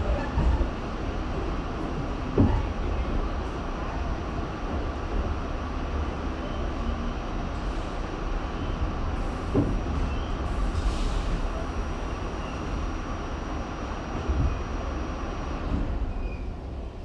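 R68 subway train running on the rails: a steady rumble with a few sharp knocks, and a faint high steady tone that stops shortly before the end, where the rumble drops a little.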